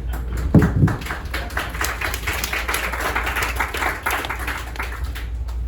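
Audience applauding, a dense patter of clapping that dies away near the end, with a brief louder sound about half a second in.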